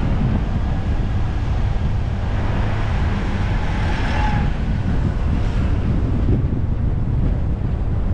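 Car driving along a road: steady road and wind noise, with wind buffeting the microphone. A brief swell of hiss comes about three to five seconds in.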